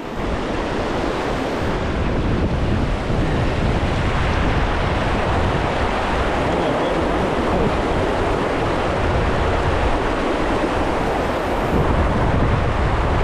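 Gusty wind buffeting the microphone over the steady rush of river water.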